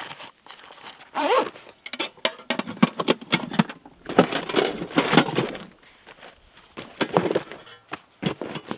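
Camping gear being packed by hand: irregular rustling and light knocks and clicks as items are handled and put into a bag.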